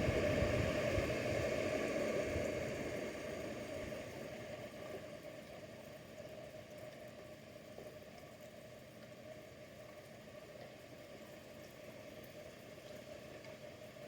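Chainsaw engine dying down over the first few seconds, leaving a faint steady hiss.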